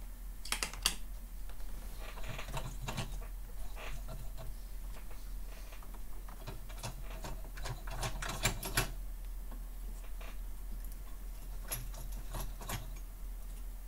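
Light clicks and taps of small repair tools handling a phone's circuit board and a fine jumper wire. The clicks come in small clusters over a steady low hum.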